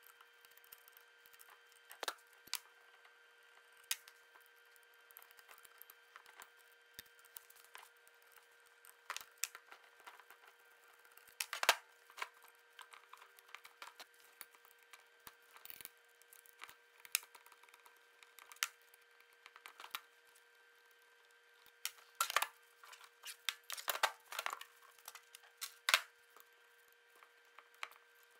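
Irregular clicks, taps and short scrapes of small hand tools on a Tolomatic air cylinder as retaining-ring pliers work its retaining ring out, with a steady faint hum underneath.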